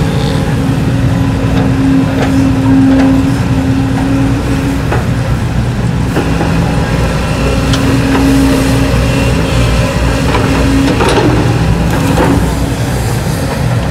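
Kobelco hydraulic excavator digging: its diesel engine runs with a steady low drone that strengthens twice as it takes load, with a few short knocks of the bucket working through soil and rock.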